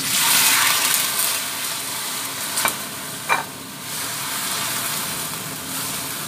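Sliced tomatoes hitting hot oil in a wok: a loud sizzle starts at once, then settles into a steady frying sizzle as they are stirred. Two sharp knocks of the spatula against the wok come in the middle.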